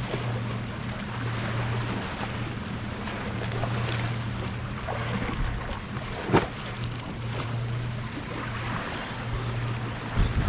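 Wind and surf noise with a steady low hum that fades in and out, and a few sharp knocks, the loudest about six seconds in.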